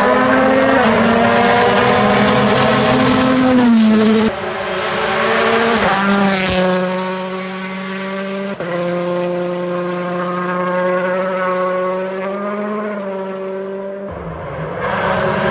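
Rally car engine at high revs as the car passes. The note drops about four seconds in, then holds steady while the sound gets duller as the car draws away. Near the end it switches abruptly to a closer, fuller engine sound.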